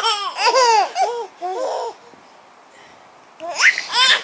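Baby girls laughing in high-pitched fits, breaking off for about a second and a half midway and starting up again near the end.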